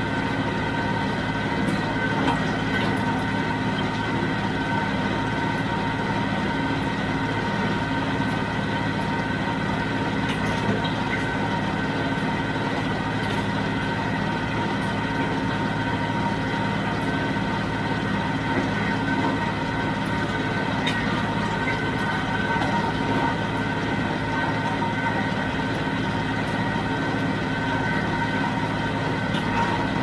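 John Deere 5055D tractor's three-cylinder diesel engine running at a steady speed, with a steady high whine over the engine note.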